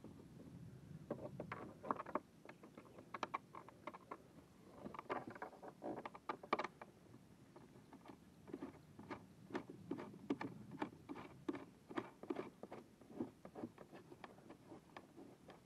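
Handling noise while working on a plastic kayak hull: irregular clicks, taps and light scrapes, in clusters at first and then a quicker series of about two clicks a second in the second half.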